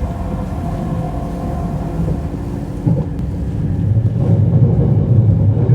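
SNCB Desiro train running, with steady humming tones over a low rumble that grows louder about four seconds in.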